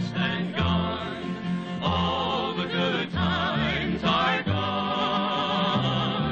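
Music: a vocal group singing in harmony, with wavering held notes over a bass line that changes note about every half second.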